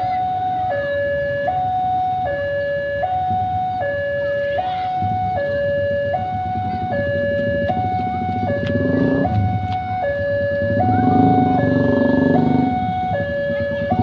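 Railway level-crossing warning alarm sounding continuously, an electronic two-tone signal switching between a higher and a lower note about every three-quarters of a second. Underneath is a low rumble of motorcycle engines idling at the lowered barrier, which grows louder about halfway through.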